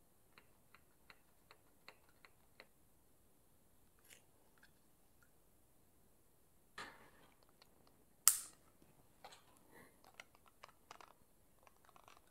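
Small clicks and light rustling from handling a bleed syringe on a hydraulic disc brake lever's bleed port: a run of about seven evenly spaced light ticks at the start, a sharp click about eight seconds in, then scattered clicks and rustles near the end.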